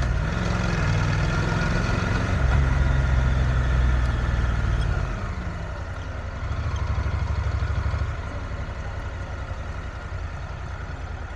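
Honda NC750X's parallel-twin engine running under light load, then easing off about five seconds in to a steady low putter near idle, briefly louder a couple of seconds later.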